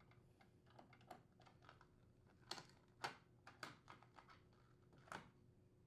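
Faint, irregular clicks and taps of a Phillips screwdriver turning out a refrigerator hinge-cover screw and the cover being handled.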